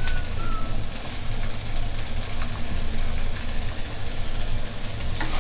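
Diced onions beginning to sizzle gently in a little oil in a wok over low heat, over a steady low hum, with a few light knocks.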